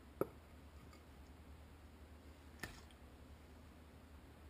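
A metal serving spoon clinks twice against crockery, about two and a half seconds apart, as stew is served from a slow cooker's stoneware pot onto a plate, over a faint low hum.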